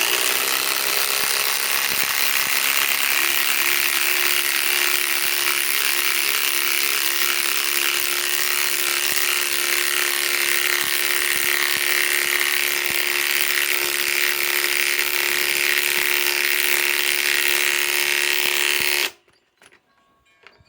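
Ryobi PSBIW25 compact impact wrench hammering without a break as it drives a 6-inch by 1/2-inch lag screw, with a steady motor whine under the rapid rattle of the impacts. It runs for about 19 seconds and then stops suddenly.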